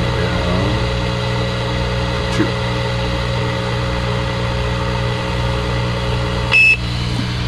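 Steady electrical hum and hiss from a Ranger RCI-2980WX ten-meter radio on the test bench, with a held tone that stops about six and a half seconds in, and at that moment a short, loud, high electronic beep.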